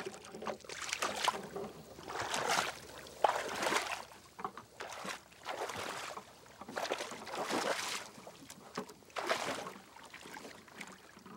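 Water sloshing and splashing in repeated swells every second or two as a person wades in a shallow pond, setting goose decoys in the water.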